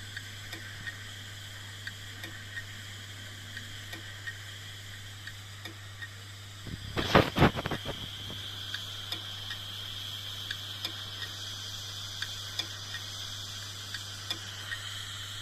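Failing hard disk drive clicking: sharp, irregularly spaced clicks over a steady hum and high whine, with a burst of several much louder knocks about seven seconds in. The clicking is the sign of a dying drive.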